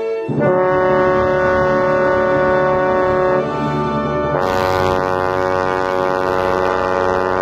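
Edwards B-454 bass trombone playing long held low notes: one note held for about three seconds, then a second, brighter note entering a little over four seconds in and held on.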